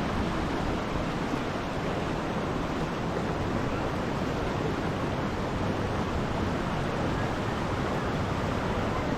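Steady rushing noise of running spring water.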